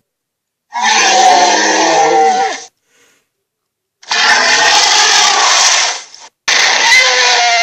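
Cartoon monster's roar sound effect: three gritty, growling roars of about two seconds each, with pitch sliding downward, separated by short silences.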